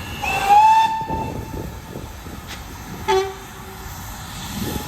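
Train horn sounding: a blast about a quarter-second in that rises slightly in pitch and lasts under a second, then a short, lower toot about three seconds in, over the low rumble of the train.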